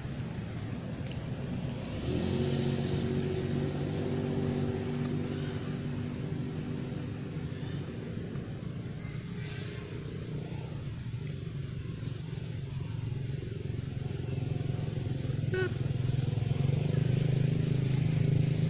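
A motor vehicle engine running with a steady hum that comes in about two seconds in and grows louder near the end, like a vehicle drawing closer.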